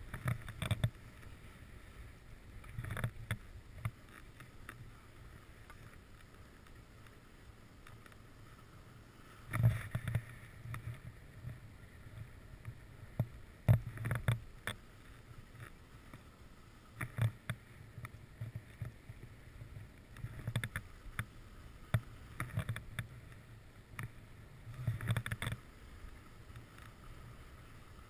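Skis sliding and scraping on snow during a downhill run, in irregular bursts every few seconds with sharp clicks among them. A low steady rumble runs between the bursts.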